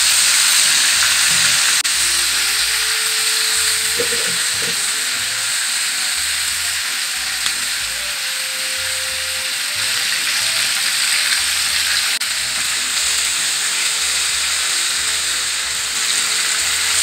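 Marinated chicken drumsticks sizzling as they fry in hot oil in a pan: a steady, even hiss.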